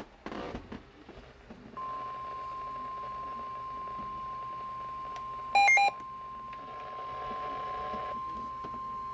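NOAA Weather Radio's 1050 Hz weather alert tone: one steady, unbroken tone that starts about two seconds in, signalling an emergency broadcast about to follow. About halfway through, a brief, louder burst of touch-tone-like beeps cuts across it.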